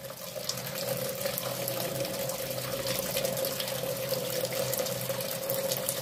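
Sanyo ASW-A76HT top-loading washing machine filling: a weak stream of water running into the tub as a steady hiss, with a steady tone beneath it. The drum stays still while it fills, the sign that the water-level sensing works again after the repair.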